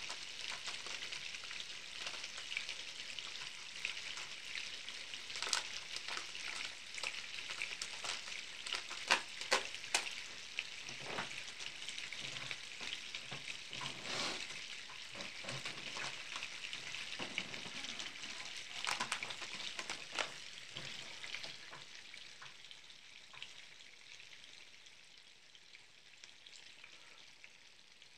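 A block of butter melting and sizzling in a hot frying pan, a steady crackling hiss with scattered sharp pops. The sizzle grows quieter over the last several seconds.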